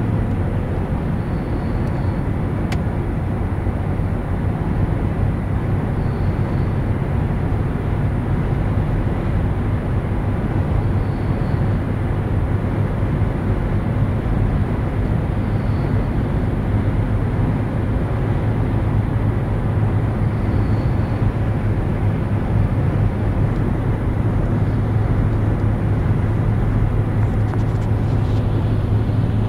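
Steady low rumble of vehicle engines and traffic, with a faint short high chirp about every five seconds.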